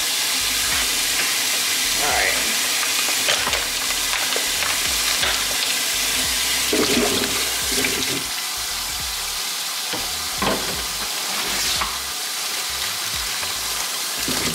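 Kitchen faucet running a steady stream into a stainless steel sink as it fills with water, with splashes and a few knocks as grapes and then strawberries are tipped in from plastic containers.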